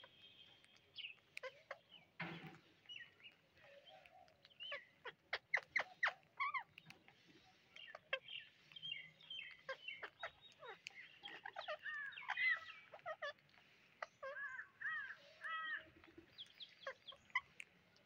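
Birds chirping and calling in short scattered notes, mixed with sharp clicks. The calls come thicker and more often in the second half, as a quick series of repeated call notes.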